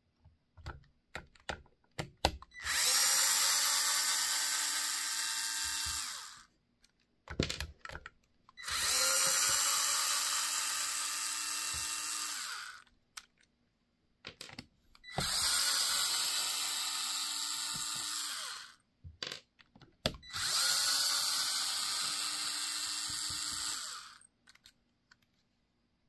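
Worx cordless electric screwdriver backing out four 2.5 mm screws one after another: four runs of about four seconds each, with clicks of the bit being set into the next screw between them.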